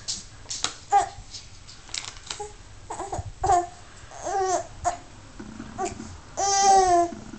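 Infant babbling and cooing: a few short vocal sounds, then a longer, louder one near the end.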